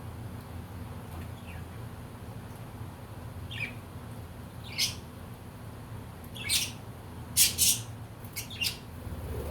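Budgerigars calling in short, sharp, high chirps and squawks: a few isolated calls at first, then several in quick succession over the last few seconds, over a steady low background hum.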